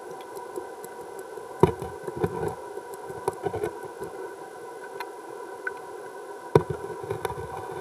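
Underwater sound picked up by a camera in its housing: a steady hum with a scatter of sharp clicks and knocks, the two loudest about one and a half seconds in and about six and a half seconds in.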